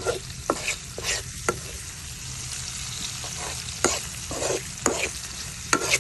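Masala-coated mussels frying in hot oil in a pan, sizzling, while a spoon stirs and scrapes against the pan in irregular strokes to keep them from sticking.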